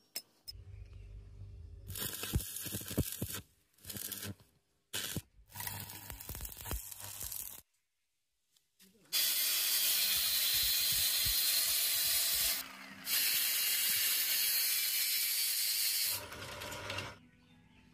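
A run of short metalworking clips. A low electrical hum comes first, then bursts of grinding and crackling noise. From about nine seconds in, a long loud steady hiss-and-crackle runs to near the end, dipping briefly once.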